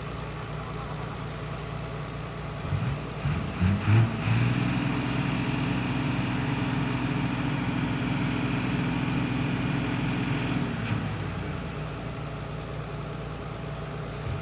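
Heavy diesel engine of a Hitachi EX200 excavator idling, then revving up about three seconds in. It holds a steady higher note for about six seconds, then drops back to idle near eleven seconds.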